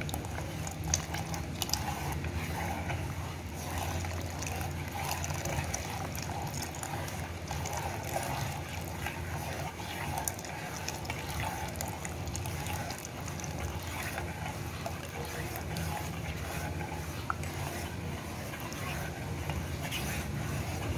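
Custard mixture poured slowly into hot milk in a steel pot while a metal spoon stirs it, scraping and clicking against the pot, over a steady low hum.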